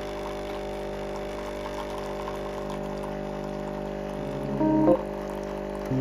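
Hotel Chocolat pod coffee machine's pump buzzing steadily as it dispenses coffee into a glass mug. A few notes of music come in briefly near the end.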